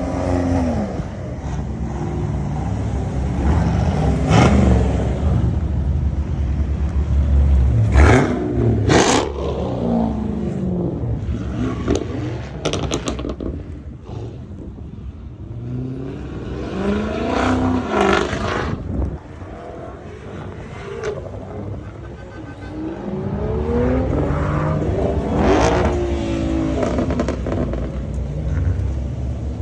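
A line of cars driving past one after another, engines revving, each engine note rising and then falling in pitch as the car goes by. The loudest pass comes about eight to nine seconds in.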